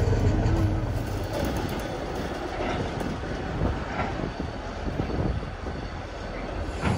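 Diesel freight locomotive and cement tank wagons moving at shunting speed. A deep engine rumble is strongest for the first second or so, then fades, leaving a steady rolling rail noise.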